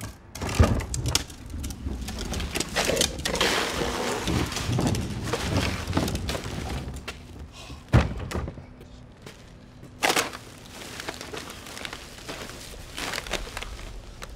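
Plastic wheeled trash bin knocking and rolling over a concrete driveway, with a garbage bag rustling and trash spilling out. Sharp knocks stand out about eight and ten seconds in.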